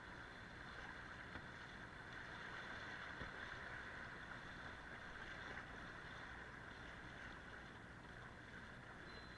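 Fast-flowing river water rushing and splashing around a kayak running through riffles: a steady hiss of moving water.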